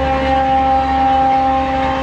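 Locomotive horn of a Humsafar Express giving one long, steady blast as the train runs through at speed, over the rumble of the passing coaches; the blast stops near the end.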